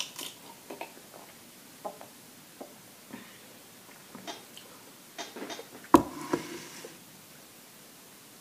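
Quiet handling and eating sounds: scattered light clicks and taps, with one sharp knock about six seconds in followed by a brief rustle.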